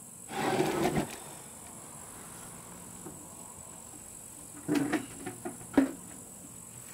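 A steady high insect chirring, with a brief scuffling noise about half a second in and a few sharp knocks and clicks near the end.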